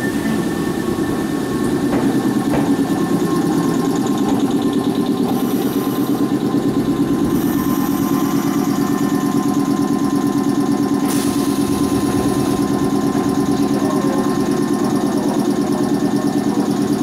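Nankai 7100 series electric train coming to a stop at the platform and standing, its under-floor equipment running with a steady, rapid pulsing hum. A short burst of air hiss comes about 11 seconds in, as the pneumatic doors open.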